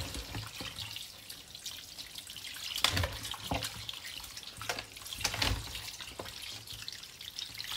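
Kitchen tap running steadily onto raw goat meat in a plastic colander in the sink, with splashing as hands rub and turn the pieces. A few sharper knocks and splashes stand out about three and five seconds in.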